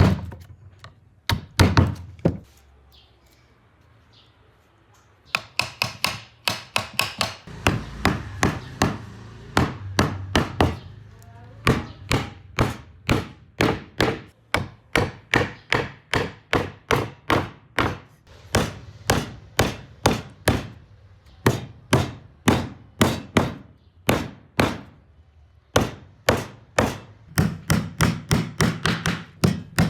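Repeated hand-struck blows on wood, a few at first, then after a short pause a steady run of sharp knocks at about two a second.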